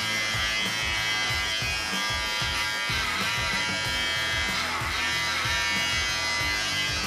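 Electric dog-grooming clipper running with a steady buzz, over background music with a regular beat.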